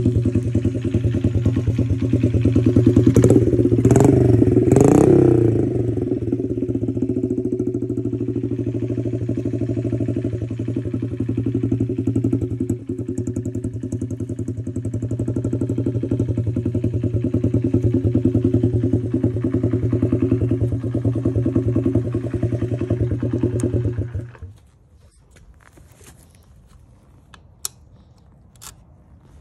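Honda CRF dirt bike's small single-cylinder four-stroke engine running, revved briefly a few seconds in, then idling steadily until it is shut off abruptly about 24 seconds in. A few sharp clicks follow near the end.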